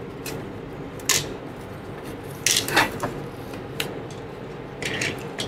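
A handful of separate clicks and light knocks, the loudest about two and a half seconds in, as a stabilizer's circuit board is handled and lifted out of its sheet-metal cabinet.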